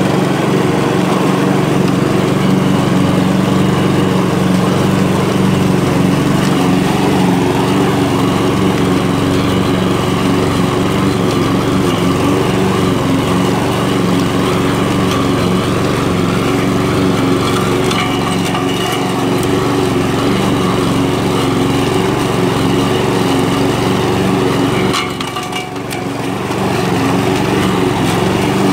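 Walk-behind gasoline rotary lawn mower running steadily while it is pushed across grass. Near the end the sound drops briefly, then comes back to its steady note.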